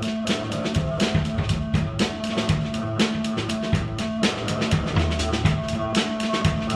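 A noise duo of a Casio keyboard and a drum kit playing live: rapid, dense drum hits with bass drum and snare over held keyboard notes. The notes shift about four seconds in, and a low note comes in a second later.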